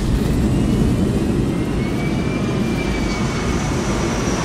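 Steady rushing noise of a jet airliner in flight, heard from inside the passenger cabin, with faint whining tones in the background.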